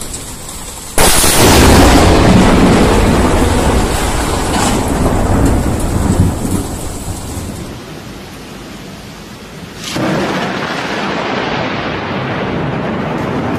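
A close lightning strike's thunderclap: a sudden, very loud crack about a second in that rumbles and fades over several seconds, with rain hissing underneath. About ten seconds in the rain noise jumps louder again and stays steady.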